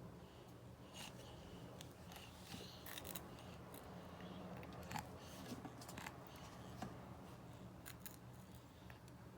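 Chips crunching and crackling in faint, irregular crisp snaps.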